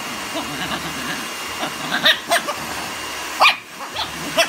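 Small white fluffy dog giving several short, high yips in the second half, over a steady background hiss.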